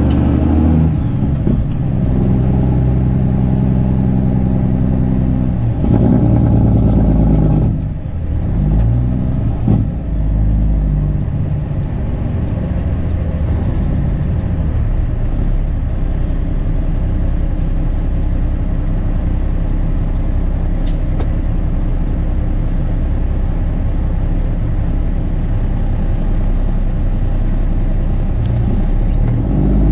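Straight-piped Kenworth C500's Cummins diesel engine running, heard from inside the cab. Its steady, loud note changes about six to eight seconds in, then settles into a lower, even run.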